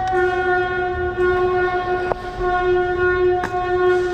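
A loud, steady horn-like tone held without a break, like a buzzer or siren, with two sharp clicks about 2 and 3.5 seconds in.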